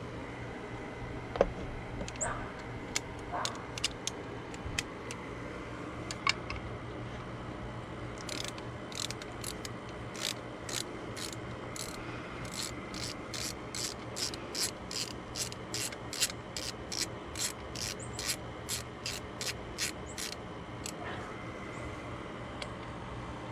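Hand ratchet clicking at a steady rate of about two clicks a second while it backs out the bolts holding the water neck to the thermostat housing. Scattered knocks and clicks of tool handling come first.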